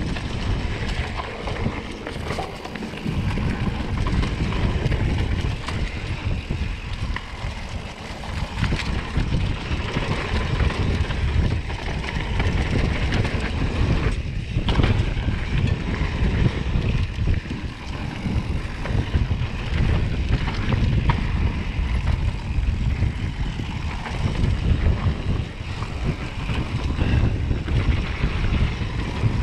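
Wind buffeting an action camera's microphone on a mountain bike descending a dirt singletrack, over the rolling of knobby tyres on dirt and the rattles and knocks of the bike over bumps.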